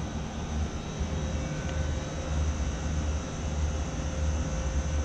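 Outdoor air-conditioner condenser units running: a steady hum and rush of condenser fans and compressors, with a faint steady tone over it.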